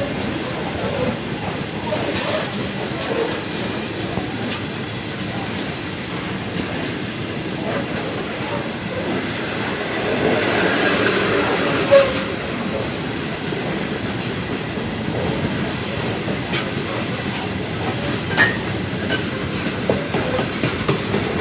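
Grain train rolling past: a steady rumble of wheels on rail with occasional sharp clicks, swelling a little about ten seconds in and with a sharp knock about twelve seconds in.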